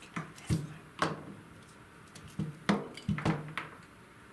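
Small hard parts and tools being handled and set down on a workbench: a series of sharp clicks and knocks in two quick clusters.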